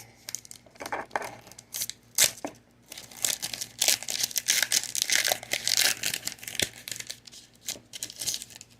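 Foil wrapper of a Pokémon booster pack being torn open and crinkled by hand: a run of sharp crackles and rustling, densest around the middle.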